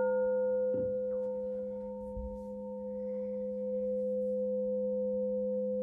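Crystal singing bowl struck once and ringing on with a steady, pure, multi-toned hum. Its highest overtone dies away within the first couple of seconds while the main tones hold.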